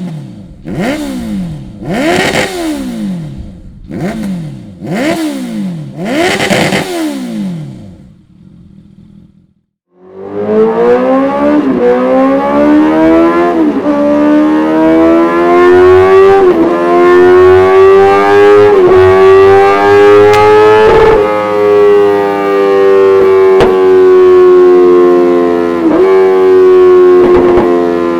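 Honda CB650F inline-four through an aftermarket Dominator full exhaust system. First comes a series of about six quick throttle blips, each rising and falling. After a short break the engine pulls for a long run, the revs climbing with a brief dip at each gear change, then holding high and easing slightly near the end.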